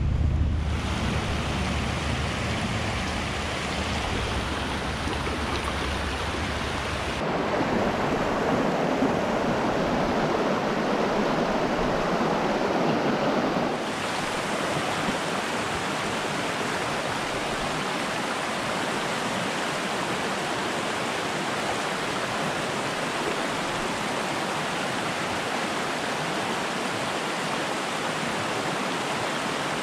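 A small mountain trout stream rushing over rocks and riffles, a steady rush of water that changes sharply in tone and loudness about seven seconds in and again about halfway. It is loudest in the middle stretch. A low rumble sits under it for the first several seconds.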